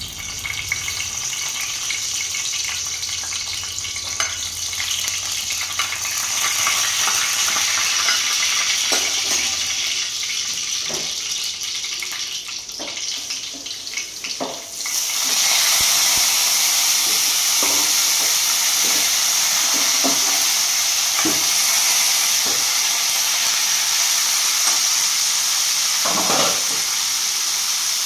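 Oil sizzling in a steel frying pan, with dried red chillies crackling and popping in it. About halfway through, sliced bitter gourd and onions go in and the sizzle jumps suddenly louder, then stays steady while a steel spatula stirs and knocks in the pan.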